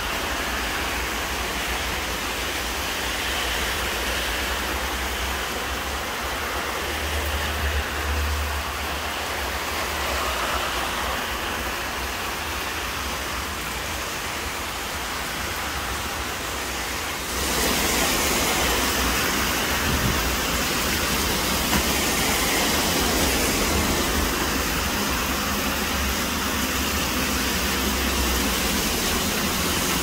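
Steady rain falling, an even hiss with a low rumble underneath, growing louder about halfway through.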